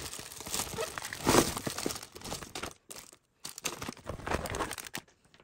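A bag crinkling and rustling as it is opened and rummaged through. The crinkling is uneven, loudest about a second in, with short pauses around the middle and near the end.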